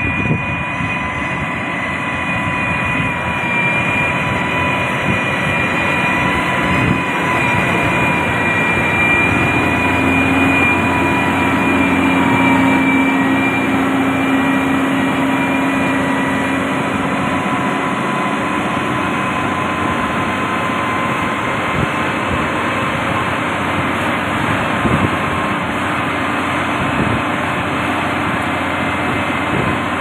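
Heavy diesel construction machinery running steadily, with a high steady whine over the engine noise; a lower hum joins for several seconds around the middle.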